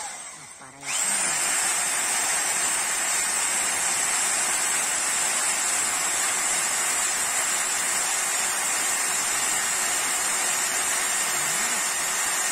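INGCO 1500W rotary hammer drill boring a masonry bit into a stone block in plain drilling mode, without hammering. The motor picks up about a second in and then runs steadily under load.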